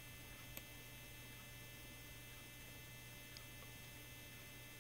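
Near silence: a faint steady low hum, with one faint click about half a second in.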